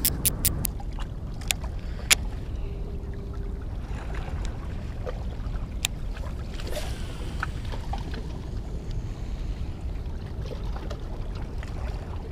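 Steady low rumble of wind on the microphone. A few sharp clicks come in the first two seconds, and light ticks and knocks are scattered after them.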